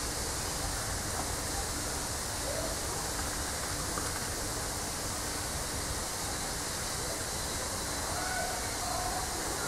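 Steady rushing background noise, with a few faint short higher sounds near the end.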